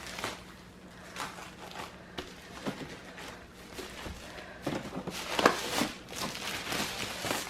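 A cardboard box being opened by hand: packing tape coming off and cardboard and packaging rustling, crinkling and knocking in irregular bursts, busiest a little past the middle.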